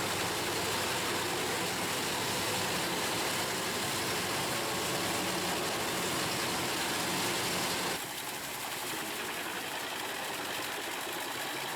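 Truck-mounted industrial drum wood chipper and its machinery running steadily. The sound drops suddenly to a lower level about eight seconds in.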